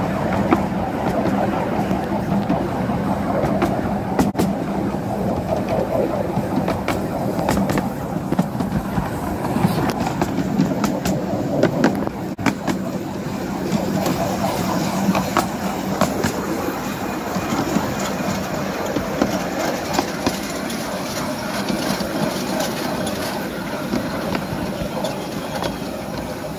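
Riding a 12-inch-gauge miniature railway train: a steady rumble of the wagons' wheels on the rails, with irregular clicks and clacks over the rail joints.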